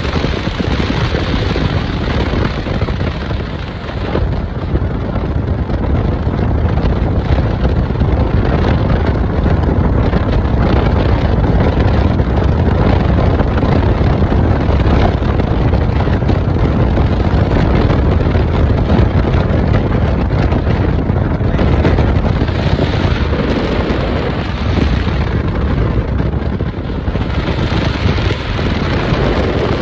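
Wind buffeting the microphone of a phone held out of a moving car's window, a loud, rough, low rumble mixed with the car's road noise.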